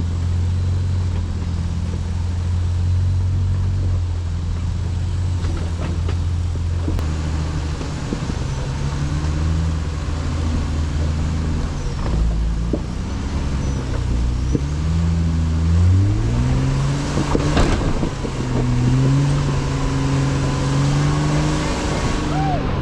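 Off-road 4x4's engine running at a steady low speed, then revving up and down repeatedly under load on the trail, with a few knocks and bangs from the vehicle over the rough ground.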